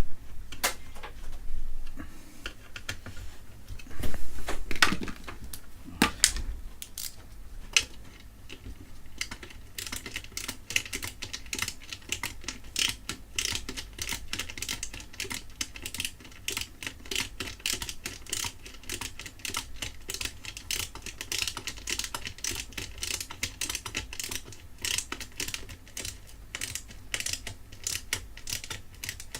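Small hand-tool and metal-part clicks while electronics hardware is being put back together: a few louder knocks in the first several seconds, then a long run of quick, light clicking, several clicks a second.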